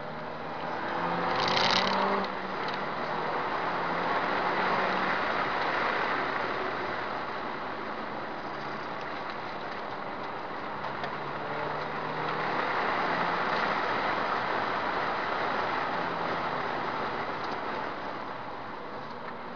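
Subaru Impreza S204's turbocharged 2.0-litre flat-four running hard at track speed under heavy road and wind noise, the sound swelling and easing twice as the car accelerates and lifts through the corners, with a brief louder rush about a second and a half in.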